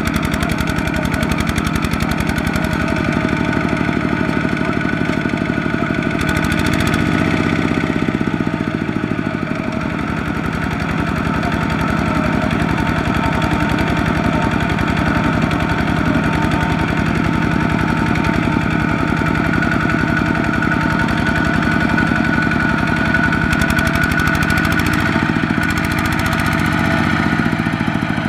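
A two-wheel walking tractor's single-cylinder diesel engine running steadily under load with a rapid knocking beat as it hauls a trailer of rice sacks through deep mud. The engine speed wavers briefly a couple of times.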